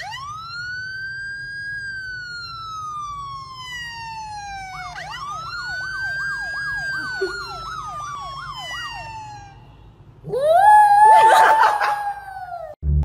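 Police-style siren played through a phone speaker: one long slow wail that rises and falls, then a second wail with a fast warble, about three wobbles a second. About ten seconds in, a small curly-coated white dog howls along loudly for a couple of seconds, its voice rising, wavering and falling away.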